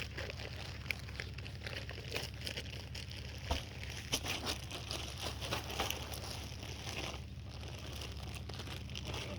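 Irregular crinkling and scratchy scraping as bagged topsoil is emptied into a raised bed and raked out, over a steady low rumble.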